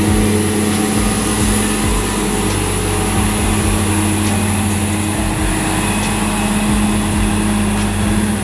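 A vehicle engine running steadily: a constant, even hum that holds its pitch and loudness throughout.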